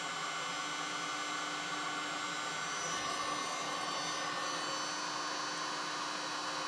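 Electric hot-air charcoal lighter running with a steady blowing hum and whine, its fan driving hot air into lump charcoal to light it.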